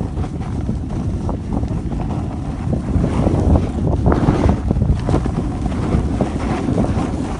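Wind buffeting the microphone of a camera carried downhill at speed, a heavy low rumble, mixed with the rasping scrape of the rider's edges over choppy, hard-packed snow.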